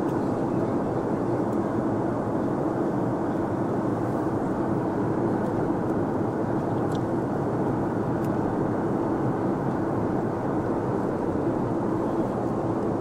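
Cabin noise of an Airbus A320 airliner descending toward landing: a steady rush of engine and airflow noise with a constant low drone.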